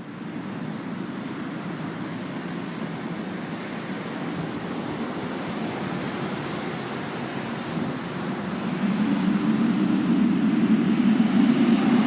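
Fire truck's engine running, a steady heavy rumble that grows louder over the last few seconds.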